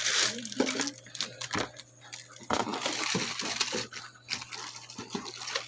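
Packaging rustling, with scattered clicks and knocks of small hard parts as the contents of a speaker box are handled.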